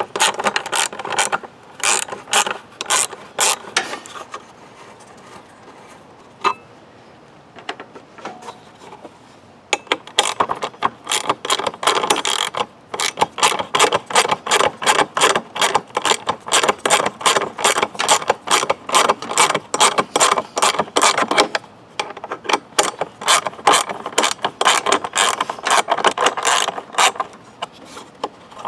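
Hand ratchet wrench clicking rapidly as its socket backs out the bolts holding an engine cover. It comes in three long spells of clicking: at the start, from about ten seconds in, and again for the few seconds before the end.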